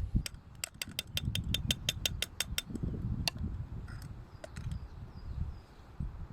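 A quick, even run of about fifteen sharp mechanical clicks, like a ratchet, lasting a couple of seconds, then a few scattered clicks over a low rumble.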